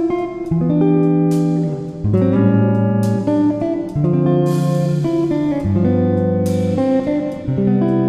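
Background music: plucked guitar notes over a line of held bass notes, with a new note struck about every half-second to second.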